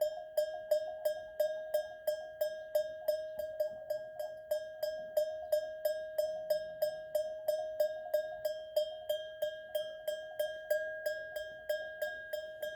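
A goat's neck bell clanking in a steady rhythm, about three strikes a second, with a ringing tone that carries on between the strikes.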